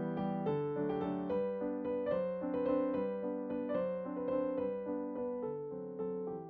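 Background keyboard music with a piano sound: a melody of notes changing every half second or so over held lower chords.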